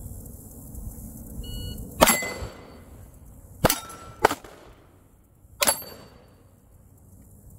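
Four 9mm pistol shots from a Glock 45, with steel targets ringing after the hits. The shots are spread out, with the second and third about half a second apart; a faint short beep comes just before the first.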